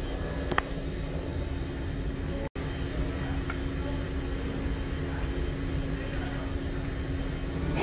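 Steady low rumble and constant hum of a kitchen's background noise, with a sharp click about half a second in and a few faint clinks of utensils. The sound cuts out for an instant near the middle.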